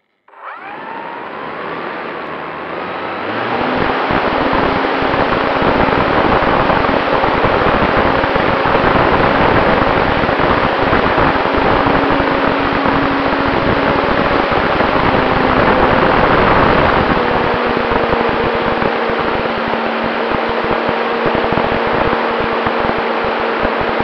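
Radio-controlled Cessna 188 model airplane heard from its onboard camera: the motor and propeller spool up over the first few seconds of the takeoff run, then run steadily in flight. Loud wind rush on the microphone buffets the sound throughout.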